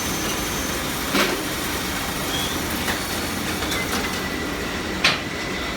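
Steady running noise of workshop machinery, with a few sharp metallic knocks, the loudest about five seconds in.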